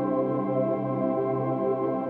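Background music: slow ambient music of long held notes at a steady level.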